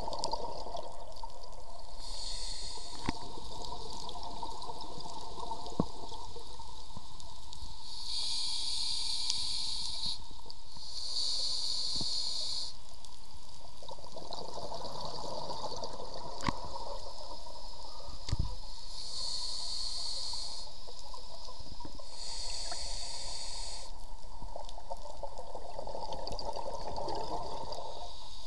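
A scuba diver breathing through a regulator, heard underwater: five hissing inhalations, each a second or two long, alternating with longer stretches of bubbling exhalation.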